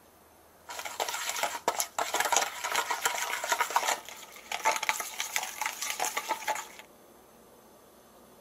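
A utensil stirring and scraping against a bowl with quick clinks, in two spells of about three and two seconds with a short pause between.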